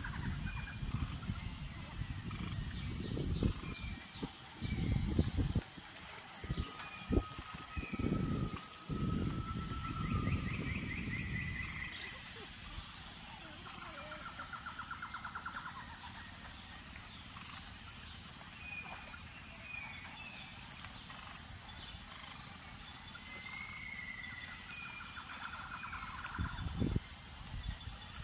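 Outdoor ambience of small birds chirping and trilling over a steady high-pitched drone, with low rumbles and knocks through the first twelve seconds and once more near the end.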